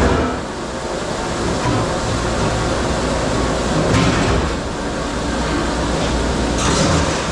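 Steady din of a commercial dish room: a constant low mechanical rumble under a rushing, hissing noise that brightens briefly about four seconds in and again near the end.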